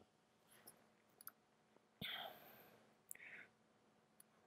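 Near silence with a few faint computer mouse clicks, and a brief soft hiss about two seconds in.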